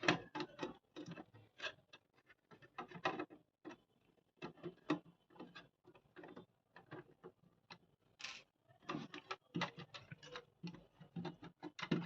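Irregular light clicks and taps of small electronic parts (LEDs, resistor, wires) and tools being handled on a workbench.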